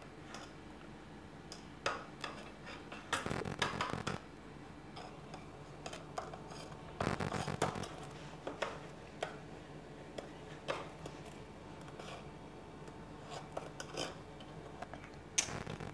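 A metal fork mashing canned tomatoes inside a tin can: irregular clinks and scrapes of metal against the can's wall, busier about three and seven seconds in.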